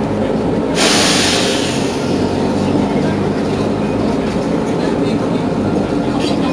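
Mercedes-Benz Citaro G C2 articulated bus idling while stationary, its engine giving a steady low hum. About a second in comes a sharp hiss of released compressed air that fades away over about a second.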